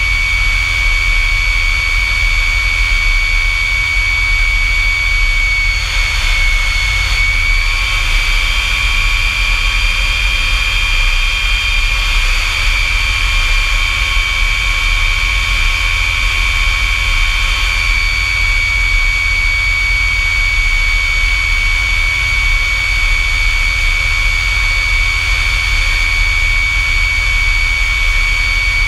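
North American F-100 Super Sabre's Pratt & Whitney J57 turbojet running steadily: a loud, high whine over a deep rumble.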